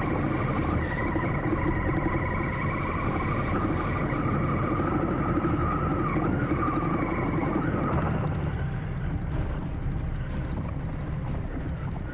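Honda Africa Twin adventure motorcycle ridden through a muddy puddle and on along a dirt track, engine running steadily under way. From about eight seconds in, light clicking from the stony track joins the engine.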